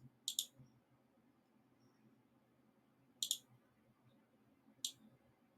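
Three short, sharp computer mouse clicks against a quiet room: one about a third of a second in, one a little past three seconds, and one near the end.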